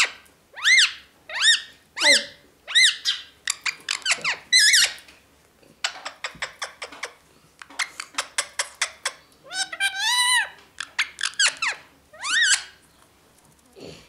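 A bird chirping: a string of short high calls that rise and fall in pitch, one or two a second, with a quick run of clicks in the middle.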